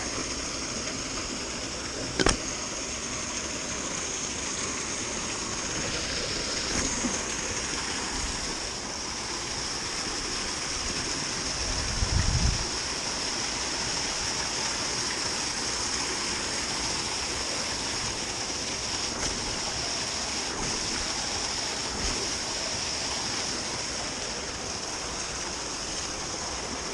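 Steady rush of running water at a canal lock. A single sharp click sounds about two seconds in, and a dull low thump about twelve seconds in.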